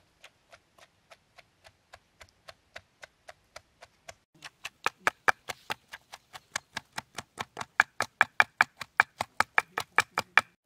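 Wooden pestle pounding small onions in a stone mortar, crushing them to a paste. Steady strokes at about two and a half a second, which get faster and louder about four seconds in, up to about four strokes a second.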